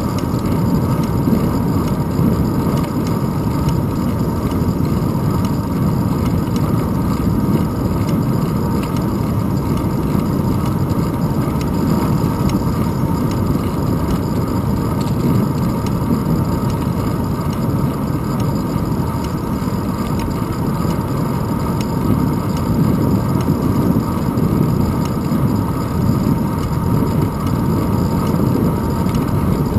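Steady low wind rush and tyre rumble from a bicycle rolling along an asphalt path, heard through a handlebar-mounted action camera.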